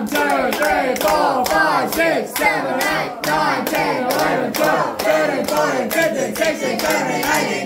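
A group clapping hands in a steady rhythm, about three claps a second, while voices sing along.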